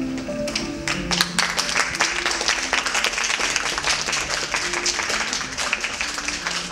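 Audience applauding, starting about a second in and keeping on, with soft background music holding notes underneath.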